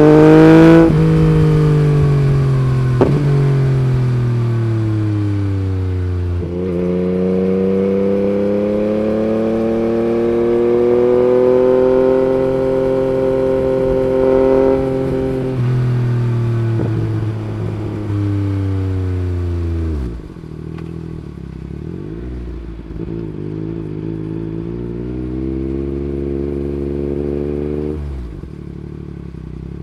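Yamaha MT-09's three-cylinder engine through an Akrapovic Racing Line carbon exhaust, heard while riding. The engine note falls away as the bike slows, with a single sharp pop about three seconds in. After a sudden gear change it climbs and holds, then falls again in steps with further gear changes and drops to a lower, quieter note near the end.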